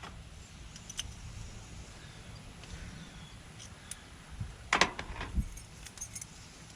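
Metal keys jingling, with scattered small metallic clicks of a lock cylinder being adjusted and tried with its key during a rekey. The loudest clicks come about three quarters of the way through.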